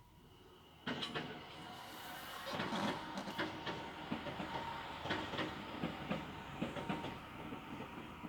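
Train passing close by, starting suddenly about a second in: a steady rumble with a run of sharp, irregular clattering knocks as its wheels cross rail joints and points.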